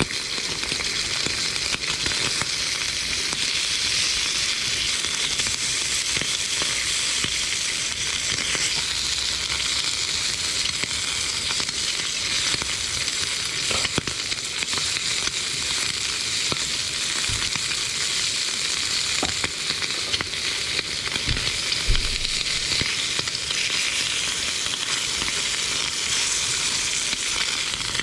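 Food frying in a pan: a steady sizzle with scattered small pops and crackles, and a couple of soft knocks about three quarters of the way through.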